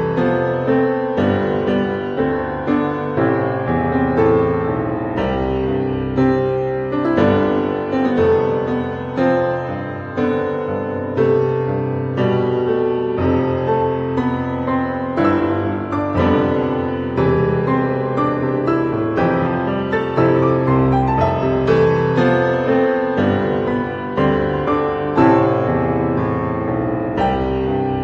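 Background piano music, a steady run of notes.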